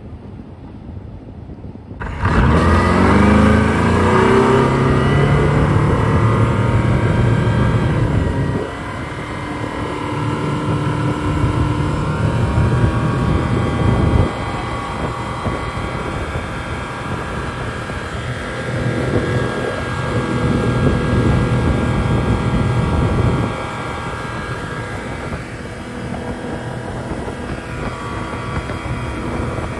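Single outboard motor on a modified Sea Cat SL1 catamaran starts up about two seconds in, rising in pitch as it speeds up, then runs on, louder and quieter by turns several times.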